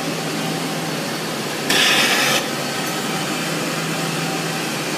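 Steady hiss of live steam and condensate discharging from a Spirax Sarco thermodynamic (TD) steam trap, with one louder, sharper burst of hiss about two seconds in that lasts under a second, typical of the TD trap's blast discharge as it cycles. A faint low steady hum runs underneath.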